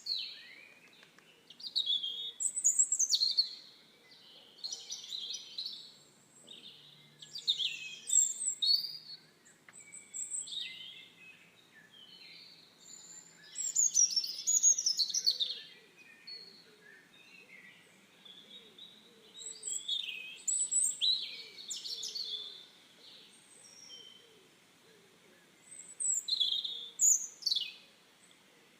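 Birds singing: short bursts of high chirping song come every two to six seconds, with fainter calls in between.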